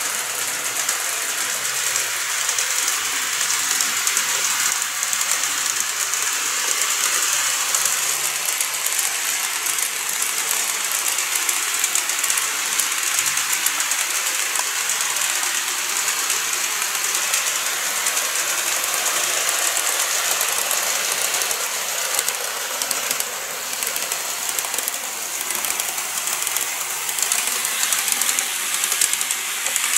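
Model trains running on a layout: a steady high-pitched whirring hiss of the small motors and wheels on the track, with fine clicking running through it and a slight dip in level a little past the middle.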